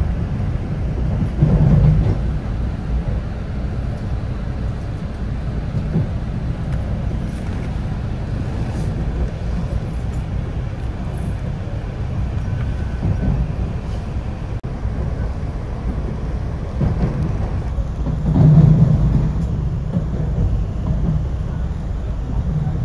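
Passenger train running along the rails, heard from inside the car: a steady low rumble that swells louder about two seconds in and again about eighteen seconds in.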